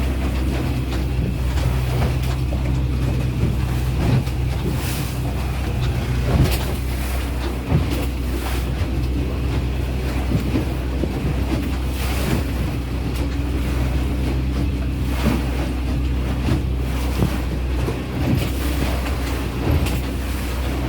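Small boat's outboard motor running steadily at cruising speed, with wind buffeting the microphone and water rushing past the hull.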